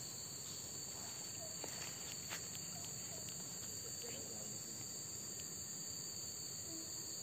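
A steady, high-pitched chorus of insects, with faint scattered ticks.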